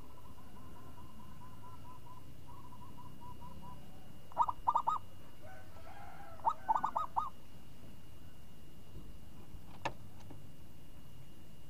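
Zebra dove (perkutut) cooing: two short phrases of rapid staccato coos, about four and a half and six and a half seconds in, after a faint run of soft quick notes. A sharp click comes near the end.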